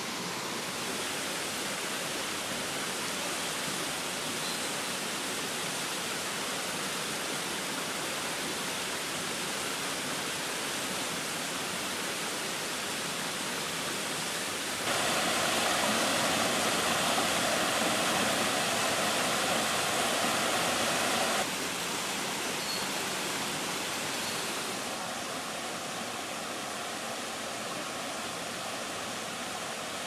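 Waterfall on the Agura River: a steady rush of falling water, louder for about six seconds around the middle.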